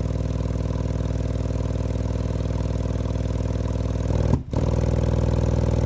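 A pair of Sundown Audio U-6.5" subwoofers played in free air at high power on a 20 Hz test tone, cones at long excursion, giving a steady low drone with many overtones. About four and a half seconds in it cuts out for an instant, then comes back slightly louder.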